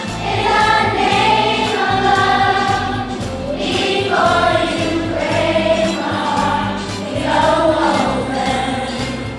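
Children's choir singing a pop song in unison over an instrumental accompaniment, in long held phrases.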